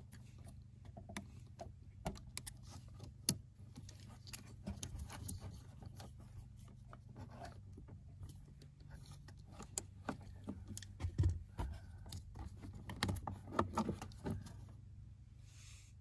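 Small plastic clicks, taps and scrapes of a screwdriver prying the locking tabs of a car's QuadLock wiring connector while the yellow speaker sub-connector is worked loose and slid out. The handling noise is irregular, with busier, louder bursts in the last few seconds.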